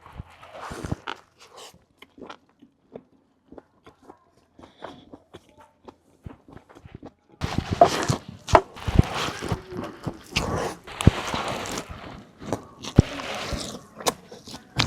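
A man biting into and chewing a chicken burger close to the microphone: scattered small mouth clicks at first, then from about halfway in a long stretch of dense crunching and rustling.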